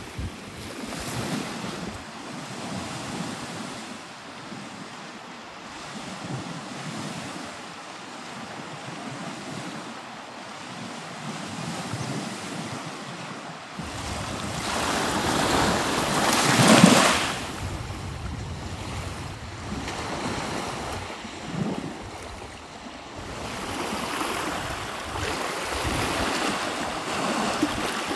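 Waves washing onto a shore in steady wind, with wind buffeting the microphone. The sound swells and ebbs, with the loudest surge about two-thirds of the way in.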